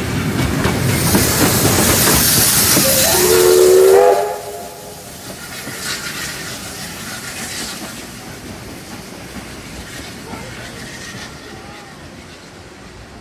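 Steam train passing close, its steam hissing loudly over the rumble of the carriages, with a short steam whistle blast of several tones about three seconds in that stops abruptly after about a second. After that it is much quieter, with faint brief hissing from a steam locomotive approaching along the line.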